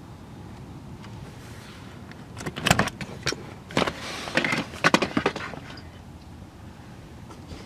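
Sharp clicks, knocks and rattles of car-seat hardware being handled, in two bursts a few seconds in.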